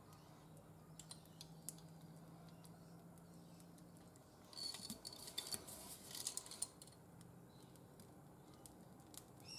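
Faint scratching and clicking from a wooden multi-bar wire soap cutter being pressed down into a very hard loaf of cold process soap, in two short bursts around the middle; otherwise near silence.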